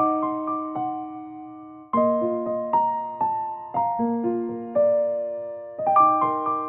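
Background music: a gentle piano melody, with phrases of struck, ringing notes that start again about every two seconds.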